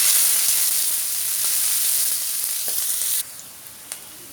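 Onions sizzling loudly as they go into hot cooking oil in a pan. The sizzle drops abruptly to a much quieter steady hiss about three seconds in.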